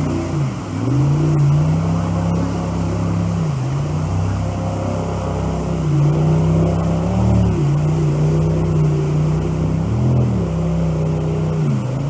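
Jet boat engine running at wide-open throttle, its note briefly sagging in pitch and recovering about five times as the boat climbs steep waves in the rapid, over the steady rush of whitewater.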